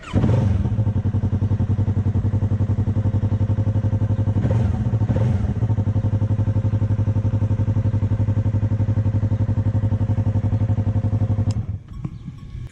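Yamaha MT-03's 321 cc parallel-twin engine idling steadily through its exhaust, with a fast even pulse. The sound cuts off shortly before the end.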